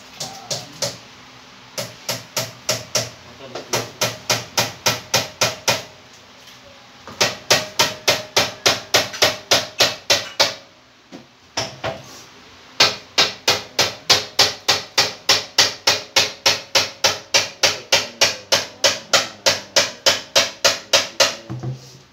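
Hammer blows struck rapidly and evenly, about three to four a second, in long runs broken by short pauses, as work goes on building a cabinet under the kitchen counter.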